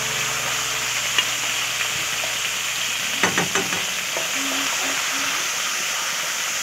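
Green pea paste sizzling in hot oil in a metal kadhai while a metal spatula stirs and spreads it. There is a sharp tap of the spatula on the pan about a second in, and a quick run of knocks and scrapes a little past three seconds.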